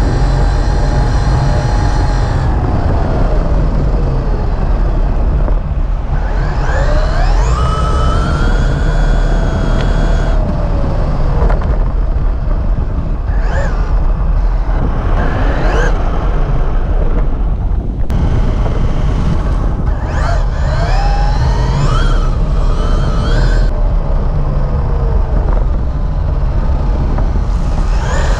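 Traxxas Mini Revo 1/16 brushless RC truck driving on sand, heard from on board: the electric motor whines, its pitch rising and falling several times as it speeds up and slows, over a heavy low rumble.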